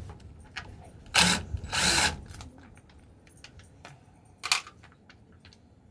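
A few short bursts of tool and metal-handling noise: two close together about a second in, a sharp one a little past the middle, with light clicks between.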